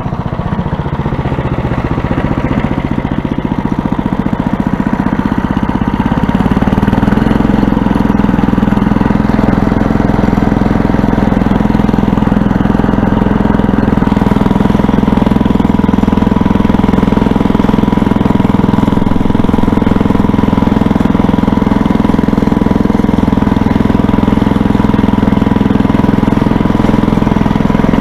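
Toro snowblower's gas engine running, picking up speed about six seconds in and then running steady and loud at full throttle.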